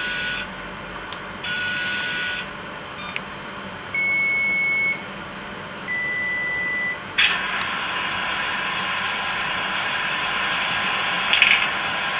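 A series of single electronic beeps, each about a second long and at different pitches, then about seven seconds in a steady running noise sets in and holds, like an HO-scale TGV model train starting to run.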